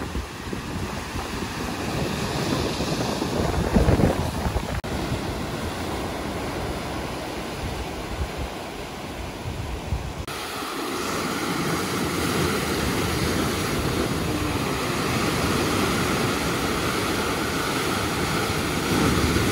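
Sea surf breaking and washing over coastal rocks, with wind buffeting the microphone as a low rumble in the first half. About halfway through, the rumble falls away and the surf becomes a steadier hiss.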